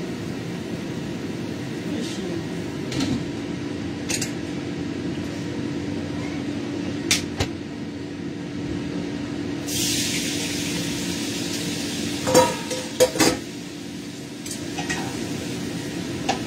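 Stir-frying in a wok on a stove: a glass lid and utensils clank against the pan several times, loudest in a quick cluster about twelve seconds in. About ten seconds in, a sudden burst of sizzling starts and dies away over a couple of seconds, over a steady low hum.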